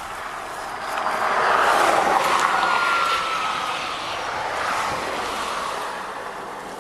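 A vehicle passing by on the road, its noise building over about a second, peaking, then fading away over several seconds, with a faint whine that drops slightly in pitch as it goes by.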